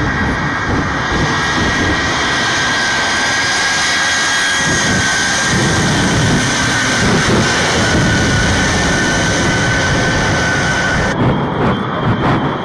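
Shockwave jet truck's three jet engines running at full power on afterburner: a loud, steady jet blast with a high whine. About eleven seconds in, the whine stops and the sound breaks into rapid crackling.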